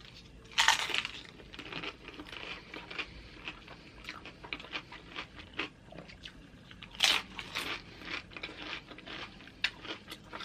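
Tortilla chips of loaded nachos being bitten and chewed, an irregular series of crunches with the sharpest ones about half a second in and again around seven seconds in.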